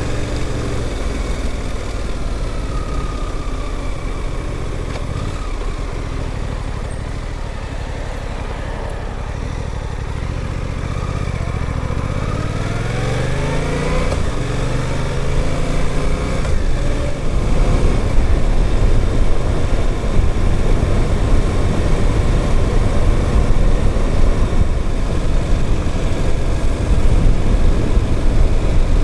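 Suzuki GSX-8S's 776 cc parallel-twin engine running on the road, heard from on the bike; the engine is new and being run in. About ten to fourteen seconds in its pitch climbs steadily as the bike accelerates. From about seventeen seconds louder wind and road noise builds up and largely covers the engine.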